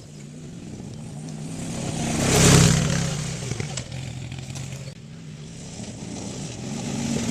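A motor vehicle's engine passes close by, growing louder to a peak about two and a half seconds in and then fading. A second pass starts to build near the end.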